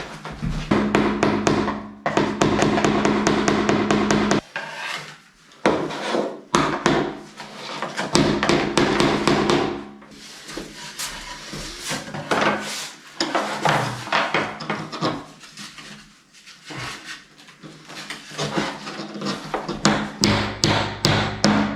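Laminate floor boards being knocked into place with a hammer: many sharp wooden knocks, in quick runs and single taps, with some rubbing and scraping of the boards.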